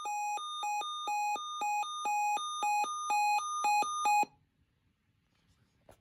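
Sangean Public Alert weather radio sounding its alert for a received severe thunderstorm watch: an electronic beep alternating between a lower and a higher pitch about twice a second, cutting off about four seconds in.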